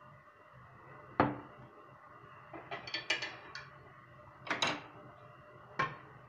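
Clatter of dishes and utensils being handled in a kitchen. There is a sharp knock about a second in, a run of quick clinks around three seconds, another clatter about four and a half seconds in and a last knock near the end, all over a faint steady hum.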